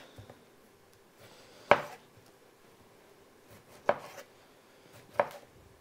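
Kitchen knife slicing tomatoes into rounds on a wooden cutting board: a few separate knocks of the blade against the board, spaced one to two seconds apart, the loudest about a third of the way in.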